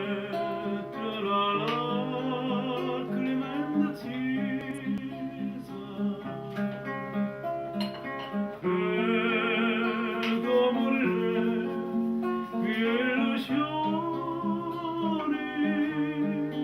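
Instrumental music: a sustained melody with heavy vibrato over a plucked, guitar-like accompaniment with an even pulse.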